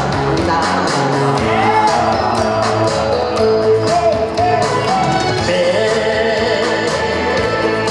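A man singing into a handheld microphone, his voice carried through the PA, over accompaniment with a steady beat.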